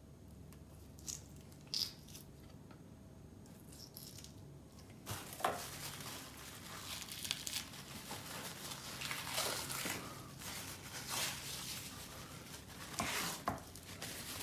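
Paper towel crinkling and rustling in the hands as it grips and peels the silvery membrane off a rack of raw pork ribs. It starts about five seconds in, after a quieter stretch with a couple of small clicks, and comes in uneven swells.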